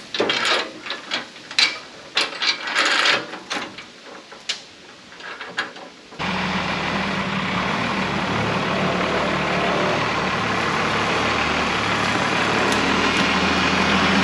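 Irregular metal clanks and knocks as a rusty steel dump-truck tailgate is handled and worked back into place. About six seconds in, this gives way abruptly to the steady idle of the Oshkosh dump truck's Cummins 6BT straight-six diesel.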